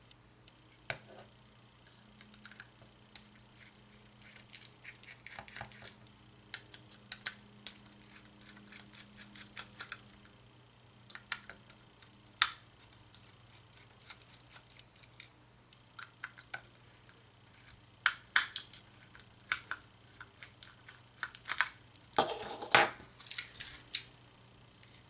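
Irregular small clicks, taps and scrapes of a plastic cordless phone handset being taken apart by hand, with a louder clattering rattle near the end.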